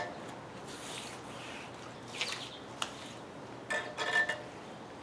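Water from a watering can pouring and splashing on a ground concrete countertop. A hand wipes across the wet surface, with a few short clinks and rubs, the loudest near the end.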